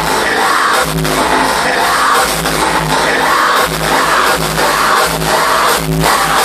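Loud hardstyle dance music from a DJ set over a large sound system, with a heavy bass beat repeating steadily throughout.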